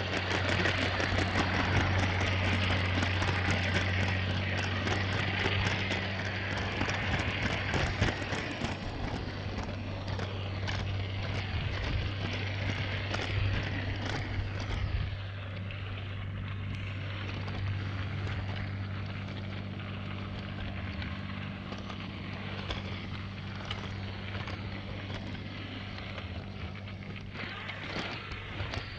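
Lego 9V train running along plastic track, picked up by a camera riding on the train: a steady motor hum under constant clicking and rattling of the wheels and wagons, louder for the first several seconds.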